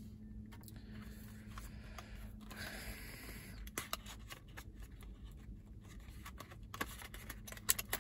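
Hands handling and opening a small cardboard smartwatch box: light rubbing and sliding of the cardboard with scattered small clicks and taps, a sharper click near the end, over a steady low hum.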